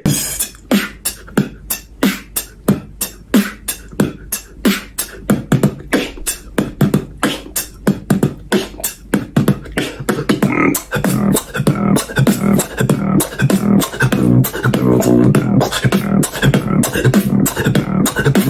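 Solo beatboxing: a steady beat of sharp kick- and snare-like hits made with the mouth, about two to three a second. About halfway through, a pitched humming bass line joins in under the hits and thickens toward the end.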